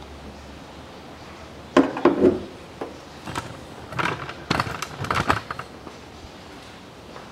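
Several sharp knocks and clattering handling noises over a low steady hum, a loud group about two seconds in and another between four and five and a half seconds in.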